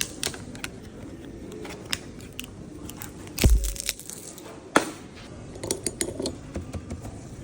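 Scattered sharp clicks and knocks of small hard objects being handled, with one heavier thump about three and a half seconds in and another sharp knock a second later.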